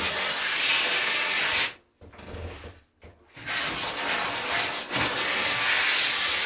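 Pur Steam PS581X handheld steam cleaner hissing as its steam plate is held against wallpaper to loosen the glue, in two long spells of about two and three seconds with a short break between.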